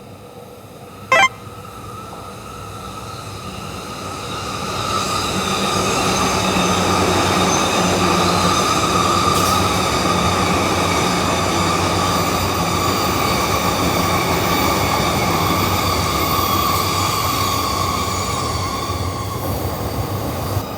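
An electric train passes through a level crossing: a steady rumble with a high, even whine that builds over about five seconds, holds, then eases off near the end. A single sharp click comes about a second in.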